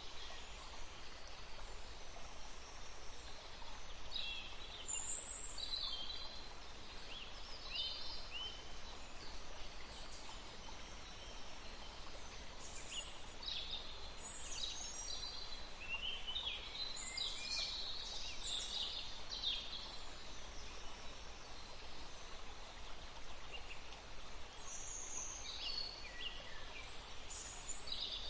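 Many songbirds chirping and trilling in short phrases over a steady background hiss of running water.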